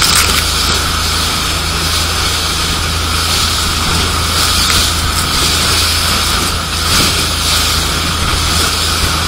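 Motorboat's engine running as a steady low hum at speed while the metal hull slaps through choppy waves, with spray hissing up alongside in surges every second or two.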